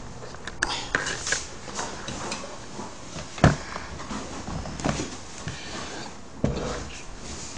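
Scattered knocks, thumps and rustling of things being handled and moved about in a small room. The loudest thump comes about three and a half seconds in, and another near the end.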